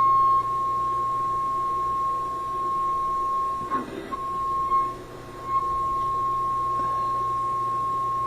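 A steady test tone of about 1 kHz playing from a 1968 Ford Mustang's Philco AM/FM car radio under a fading test, over a low hum. The tone breaks off briefly about four seconds in and wavers again shortly after, then holds steady, with no fading.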